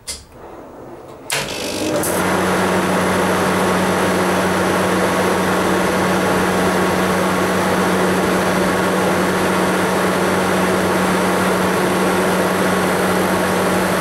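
Refrigeration condensing unit cutting in: a click, then a louder click about a second later as the compressor starts, settling within a second into a loud, steady running noise with a low hum. The low pressure switch has made and is letting the unit run.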